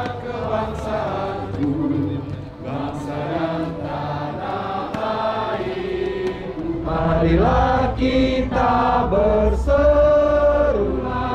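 Music with a group of voices chanting in long held notes. The chant grows louder in the second half, where one note slides upward about seven seconds in.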